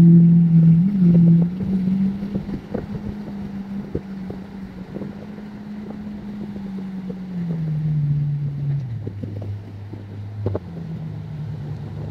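Jet ski engine running fast on the water, growing fainter over the first few seconds; about eight seconds in its pitch drops, then picks up again near the end. Wind noise on the microphone.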